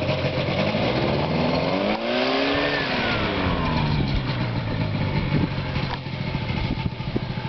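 Ultralight aircraft engine running on a test run after a head gasket repair. Its pitch rises to a peak about two and a half seconds in, falls back, then runs steadily.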